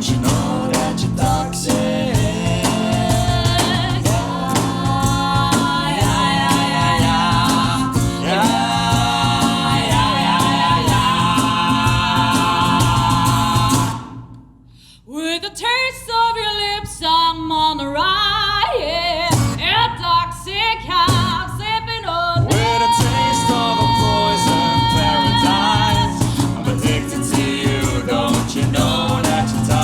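Live pop band playing with wordless sung vocals over it. About halfway through the band stops dead, and the voices carry on alone for several seconds before the full band comes back in.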